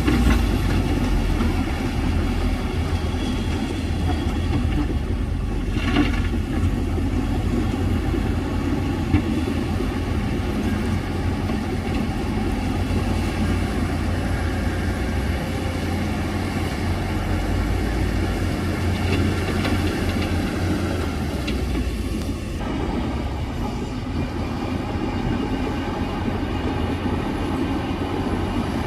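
Heavy diesel earthmoving machinery running and working under load, a deep steady engine rumble with metallic clatter, and a couple of sharp clanks about six and nine seconds in.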